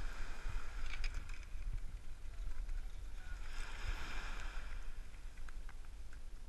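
Wind rumbling on a body-worn action camera's microphone, with small waves washing up on a sandy beach; a wash of surf swells about halfway through.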